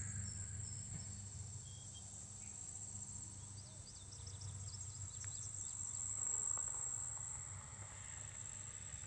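Insect chorus in weedy meadow, a steady high-pitched trill that never stops. A few short high bird chirps come between about four and six seconds in, over a low rumble.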